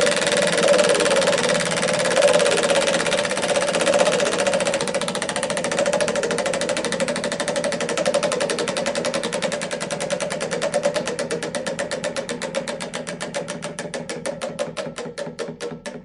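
Spinning prize wheel, its pointer clicking against the pegs. The clicks come so fast at first that they blur into one continuous rattle, then slow steadily and fade as the wheel winds down, to a few clicks a second near the end.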